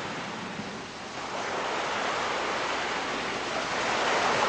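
Sea surf washing on a rocky shore: a steady hiss of waves that swells louder about a second in.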